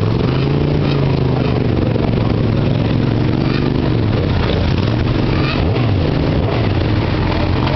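Several motorcycle engines running together, with one revved up and back down over the first few seconds.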